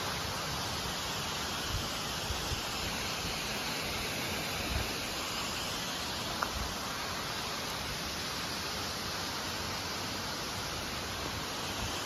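Steady, even rushing of a waterfall and its stream, with a few soft footfalls on the trail.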